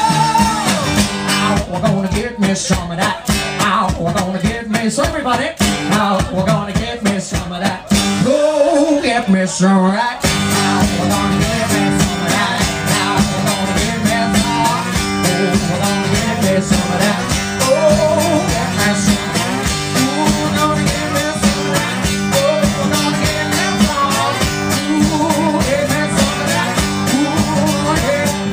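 Live blues music: amplified guitar playing a steady groove with a man singing. About two seconds in the low rhythm drops away, leaving sliding guitar lines, and the full groove comes back about ten seconds in.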